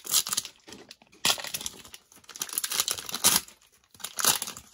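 Plastic and foil wrappers of Panini Prizm Draft football card packs crinkling as they are handled, in several short bursts.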